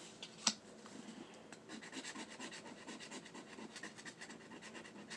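A 20X The Cash scratch-off lottery ticket being scratched with rapid, short strokes, after a single sharp click about half a second in.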